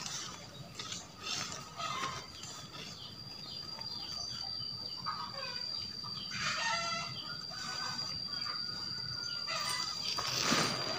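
Chickens clucking in the background, with a rooster crowing about six seconds in, over a steady high-pitched tone. A brief noisy rustle comes near the end.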